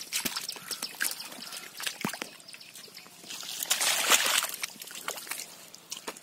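Muddy water splashing and dripping in short bursts, loudest about four seconds in as a catfish and muddy water drop into a woven bamboo basket.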